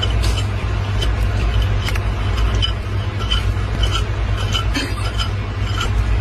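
A steady low rumble with many light, irregular clinks and ticks over it.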